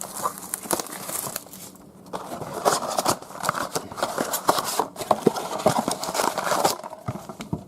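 Plastic wrapping and packaging of a trading-card blaster box being torn open and handled: irregular crinkling and crackling with small clicks, with a short lull about two seconds in.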